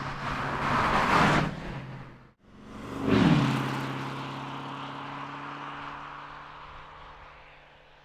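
2017 Porsche Panamera Turbo's twin-turbo four-litre V8 and tyres driving past. It grows louder as it approaches and cuts off abruptly about two seconds in. Then it sweeps by with a drop in pitch just after three seconds and fades steadily as the car pulls away.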